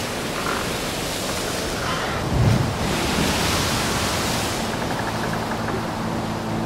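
Sea wash and wind rushing steadily, with one dull thump about two and a half seconds in. A steady low hum comes in near the end.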